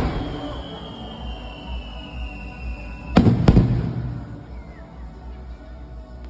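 Fireworks: a thin whistle that falls slightly in pitch for about three seconds, then two loud bangs about a third of a second apart, echoing away. Music plays faintly underneath.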